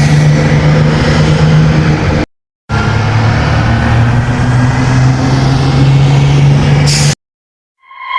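Bus engine running with a steady low drone. It cuts out to silence briefly a couple of seconds in, then resumes. A short hiss comes near the end before the sound cuts off again.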